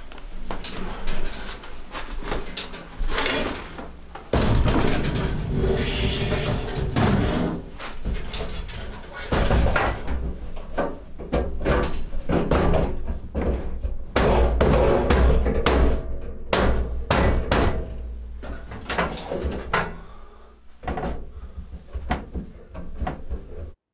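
Sheet-metal stovepipe sections and a small steel wood stove being handled and fitted together: many irregular metal clanks, knocks and scrapes.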